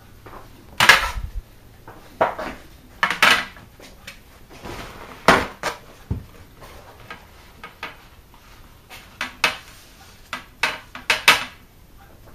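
Kitchen items being handled on a worktop: irregular clatters and knocks of dishes, cups and containers, a dozen or so, a few of them much louder than the rest.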